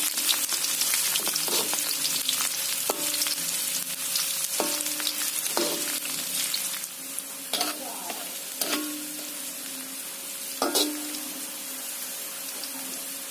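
Sliced shallots sizzling in hot oil in a pan while being stirred with a spatula that knocks against the pan every second or so, each knock leaving a short metallic ring. The sizzle is loudest at first and dies down about halfway through.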